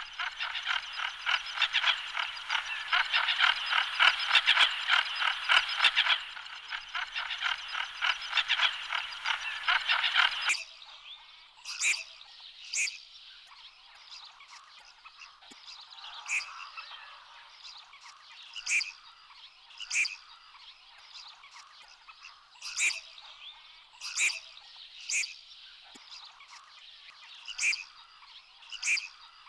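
A dense chorus of rapid pulsed animal calls that cuts off abruptly about ten seconds in. It is followed by single short, high calls spaced roughly a second apart.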